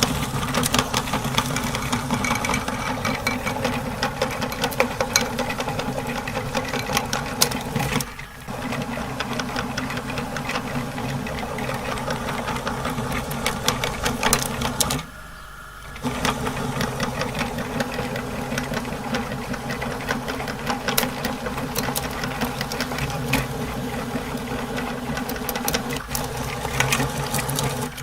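Electric meat grinder running steadily and grinding a candle, with many small clicks over the motor hum. The sound dips briefly about a third of the way in and drops away for about a second just past the middle before carrying on.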